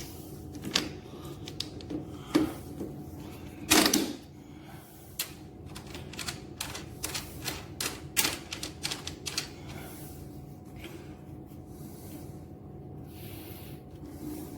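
Irregular clicks and knocks of lawn mower parts being handled and fitted together during assembly, with a louder knock about four seconds in and a quicker run of clicks in the middle.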